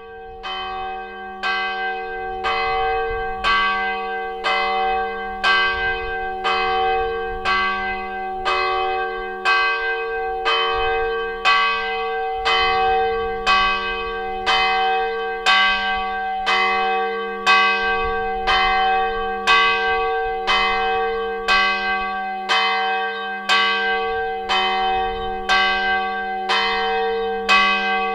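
A church bell tolling, struck steadily about once a second, each stroke ringing on into the next.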